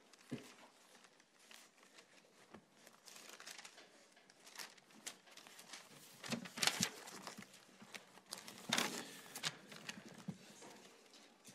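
Thin Bible pages being leafed through, paper rustling and crinkling, with two louder page turns a little past the middle.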